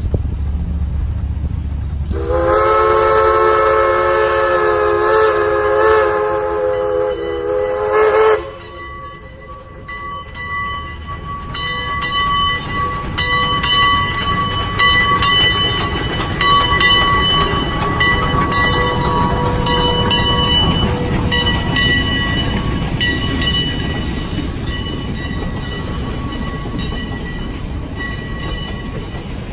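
Heisler #6 geared steam locomotive's whistle blowing one long chord-like blast of about six seconds, cut off sharply. The train then rolls on with a low rumble, scattered rail clicks and a steady high wheel squeal.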